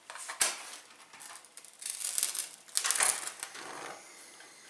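Gas hob burner being lit: a sharp click, then a burst of rapid crackly clicking from the ignition, then the burner catching and hissing steadily from about three and a half seconds in.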